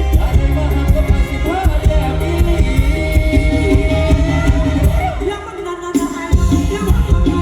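Loud stage-show music: a singer's gliding melody over a heavy bass beat. The bass drops out for about a second around five seconds in, then comes back.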